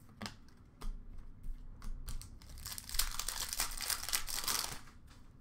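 Two light clicks of cards being handled, then about three seconds of dense crinkling and tearing as a trading-card pack wrapper is ripped open and crumpled.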